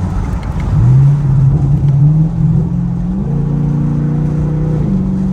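Chevrolet Camaro SS's 6.2-litre V8 pulling under throttle, heard from the cabin. Its pitch rises about a second in and keeps climbing, then holds steady before easing off near the end.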